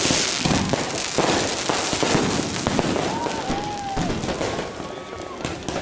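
Fireworks going off in a dense, continuous barrage of overlapping bangs and crackling: a display firing uncontrolled, everything bursting at once. A short thin whistle sounds about three seconds in.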